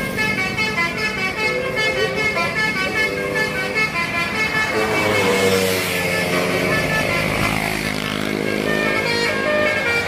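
Multi-tone telolet air horn on a coach playing a quick tune of short stepped notes. The bus's engine and tyres grow louder from about halfway as it approaches.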